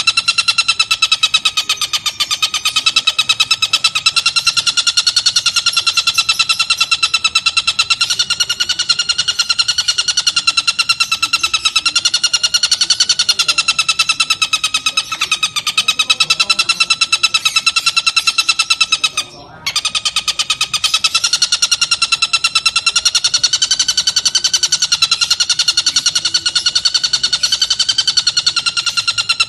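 Oriental dollarbird (tengkek buto) calling: a continuous, very fast harsh rattle with a slowly wavering pitch, breaking off briefly once about two-thirds of the way through.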